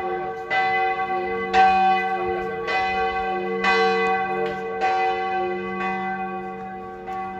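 Church bells ringing at noon, one strike about once a second, each ringing on into the next over a steady hum.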